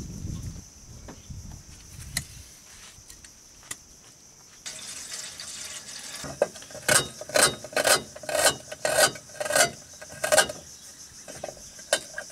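A few faint knocks, then water poured from a bottle into a steel pot. Then a knife cuts shallots on an aluminium tin lid in sharp strokes about two a second, pausing and starting again near the end.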